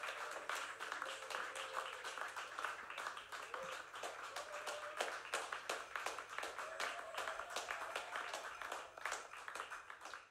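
Audience applauding: many hands clapping in an irregular patter, thinning out near the end.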